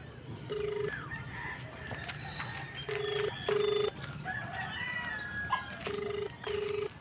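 Ringback tone of an outgoing mobile phone call heard through the phone's speaker: one short low beep about a second in, then double beeps about three and six seconds in. Roosters crow and small birds chirp in the background.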